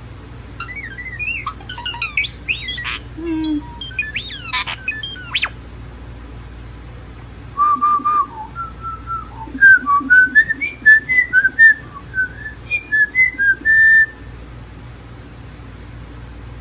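European starling whistling and chirping in mimicry: a quick jumble of sliding whistles, squeaks and clicks, then, after a short pause, a run of clear whistled notes that step up and down like a tune.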